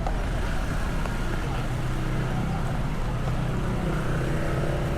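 A motor vehicle's engine running with a steady low hum amid street traffic noise.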